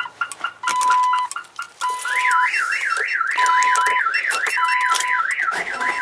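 Viper 3305V car alarm siren going off, set off by opening the door while the alarm is armed. A steady beep repeats about once a second over quick chirps, then about two seconds in a fast warbling wail takes over, rising and falling about three times a second.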